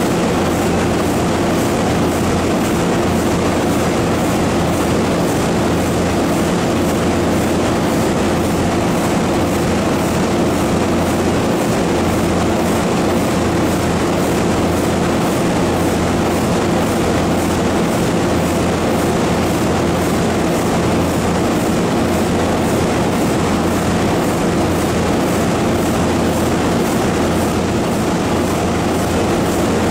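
1932 Burmeister & Wain double-acting two-stroke diesel engine running steadily at a constant level. Its generator is off the grid, so the engine runs with no load.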